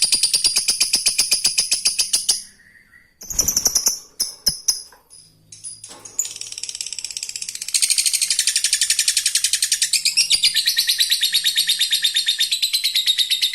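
Lovebird's long rapid chattering trill (ngekek): a fast, even string of shrill notes. It breaks off about two seconds in, leaving a few scattered chirps and a thump, then starts again near six seconds and runs on.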